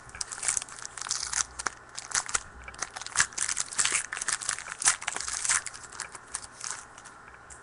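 Crinkling and tearing of a foil trading-card pack wrapper, with a quick run of sharp crackles and rustles as the pack is opened and the cards are handled.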